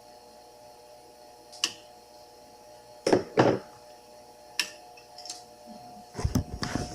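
Plastic typewriter ribbon spools being pulled off their spindles, making a click, then two loud clunks about three seconds in, a few lighter clicks, and a rattle of handling near the end, over a faint steady hum.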